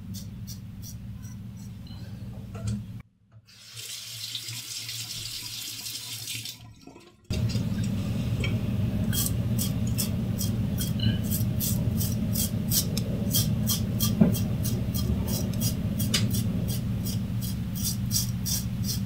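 Yuma double-edge safety razor with a Shark blade scraping through lathered stubble in short strokes, about two a second, over water running in the sink. About three seconds in, the strokes stop for around four seconds while a high hiss of water plays, then they resume.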